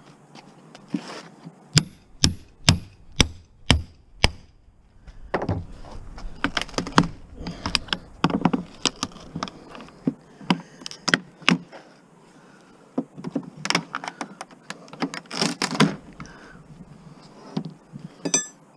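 Steel pry bar striking and levering at the cabinet of a big-screen rear-projection TV. It begins with a run of about six sharp knocks, half a second apart, a couple of seconds in. After that come irregular cracking and knocking as the panels are pried apart, with a few more bursts of knocks near the end.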